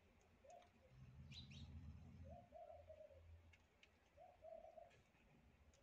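Faint cooing of a pigeon, a short low call repeated about every two seconds, with a couple of faint higher chirps. A low hum sits under it for about a second and a half, starting about a second in.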